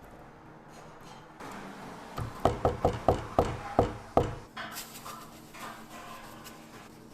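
A quick run of about eight sharp knocks over roughly two seconds, starting about two and a half seconds in: a kitchen utensil striking a hard work surface during food prep.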